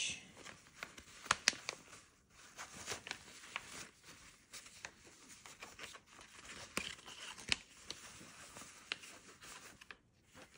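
Rustling and small irregular clicks of a thin nylon drawstring pouch being handled, its cord loosened and the pouch opened, with small sample packets inside shifting against it.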